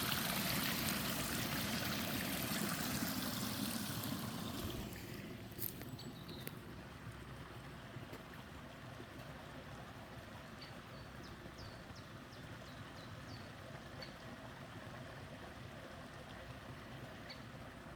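A steady rushing noise, loud at first, falls away about four to five seconds in and settles to a quieter hiss. A few faint, short high chirps come through near the middle and once near the end.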